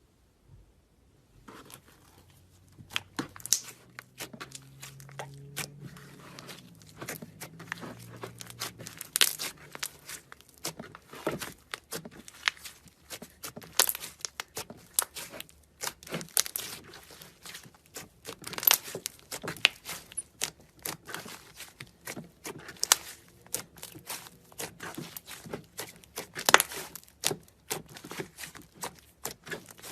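Slime being squished and stretched by hand: a dense, irregular run of sticky pops and crackles that starts about a second and a half in.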